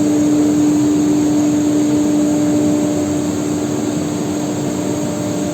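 Four-head CNC nesting router running: a steady whine over a broad rushing noise, the whine strongest in the first three seconds and then fading somewhat.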